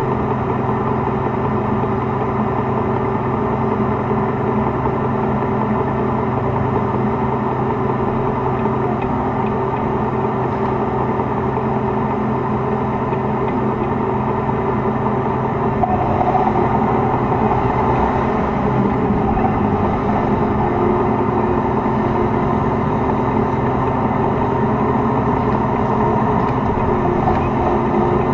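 T-72 tank's V12 diesel engine running steadily. About halfway through it gets louder with a rising note as the tank pulls forward.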